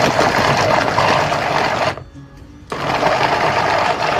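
Gaabor MG-15M 300 W electric food chopper running in two pulses of about two seconds each, its motor and blades whirring as they chop onion pieces in the bowl. The noise drops briefly between the pulses, about two seconds in.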